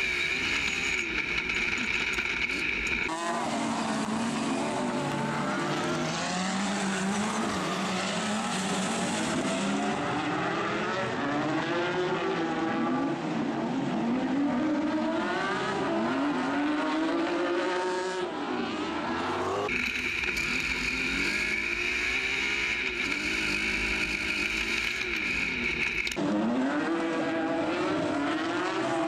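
Autocross super buggy engines racing on a dirt track, their pitch climbing and dropping over and over with throttle and gear changes. Twice the sound switches to the inside of a buggy, where a steady high whine and a low rumble take over.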